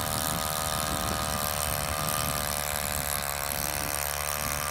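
Gas-powered ice auger engine running at a steady speed as it bores a hole through lake ice.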